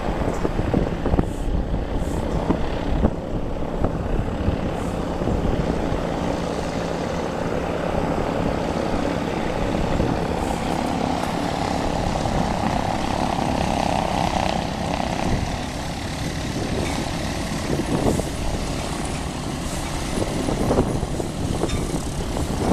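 Piston propeller engines of light aircraft running, with a Cessna 337 Skymaster taxiing. The engine noise swells around the middle. Wind rumbles on the microphone throughout.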